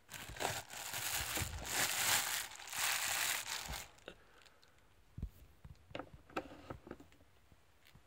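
Thin plastic bag liner crinkling and rustling as a slotted plastic cat-litter scoop is pushed through a waste pail's bagged opening and emptied, for about four seconds. Then a few light plastic taps and clicks.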